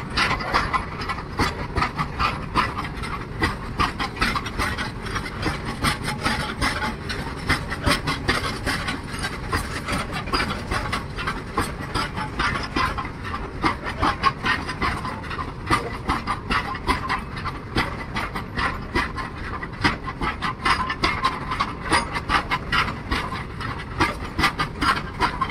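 Indian Railways freight train of BOXN open wagons passing close by, its steel wheels clattering on the rails in a dense, rapid, unbroken stream of clicks and knocks.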